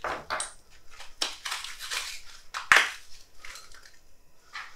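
A Hot Wheels plastic-and-card blister package being cut and torn open. It goes as irregular crinkling and crackling of plastic and cardboard, with one sharp snap a little past the middle.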